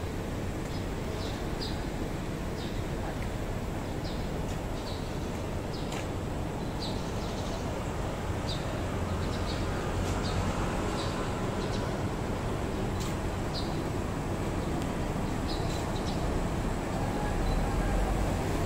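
City street ambience: a steady low rumble of traffic, with small birds giving short high chirps now and then. The rumble grows louder near the end as a vehicle comes closer.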